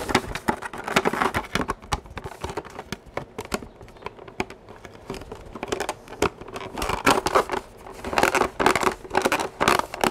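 Hard plastic clicking and rattling as the front battery cover of an Iron Man Nano Gauntlet toy is handled and fitted back on. The clicks come thick and fast, busiest and loudest in the last few seconds.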